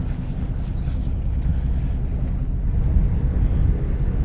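Wind buffeting the microphone over the steady low rumble of a fishing boat at sea.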